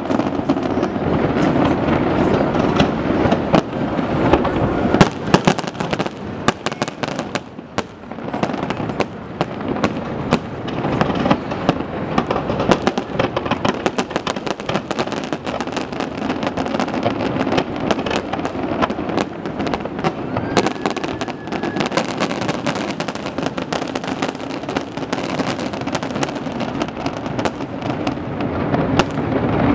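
Aerial fireworks shells bursting in quick succession, a continuous barrage of bangs and crackling, with a brief lull about eight seconds in.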